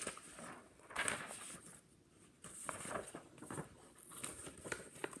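Pages of a picture book being turned and handled: paper rustling and flapping in several bursts, with a few sharp clicks.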